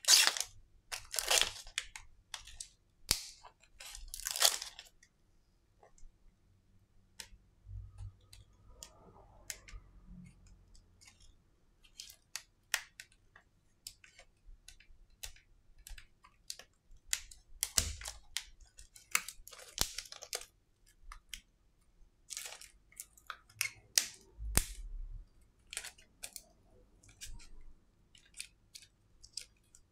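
Hands working on a disassembled smartphone: scattered small clicks and taps of plastic parts, with short crackling, tearing rustles, most of them in the first few seconds and again later on.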